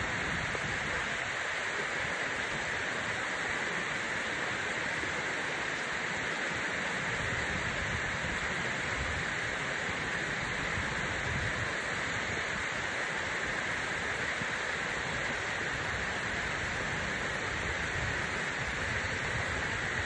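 Steady roar of rushing water from a waterfall, an even unbroken rush of falling water.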